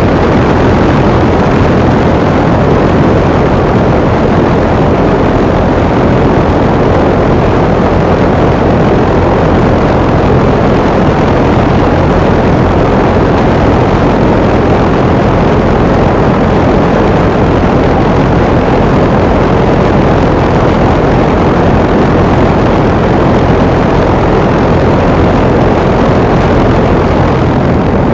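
Outdoor unit of a 1.5-ton Goodman heat pump running in cooling mode: a loud, steady rush of air from the condenser fan over a low, even compressor hum.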